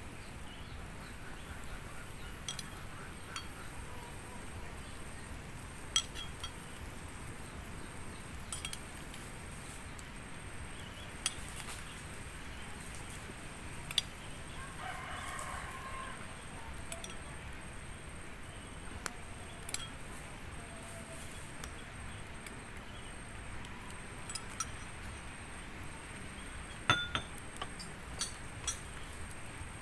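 Occasional light metallic clinks from beer-can-bottom cups of quail eggs being handled and spooned with fish sauce, a few sharp ticks spread over the stretch, above a steady low hiss.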